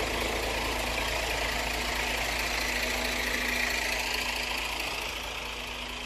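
Heavy truck's diesel engine idling steadily while the rig stands parked.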